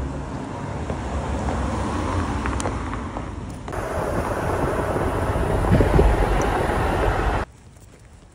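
Steady rumble and road noise of a moving vehicle, with a deep low drone under a broad hiss; the sound jumps abruptly about four seconds in and cuts out to a much quieter background near the end.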